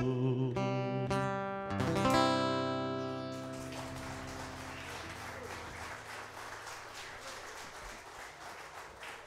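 A country band's closing chord on electric and acoustic guitars, struck once more about two seconds in, then ringing out and fading away to a faint hiss.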